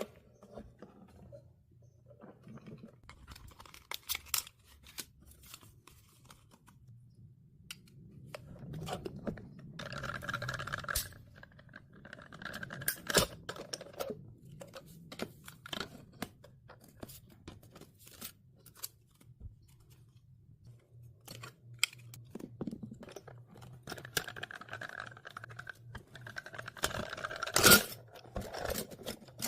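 Hands handling paper and plastic parts: scattered clicks and taps, with a couple of longer stretches of rustling and scraping, and a sharp click near the end.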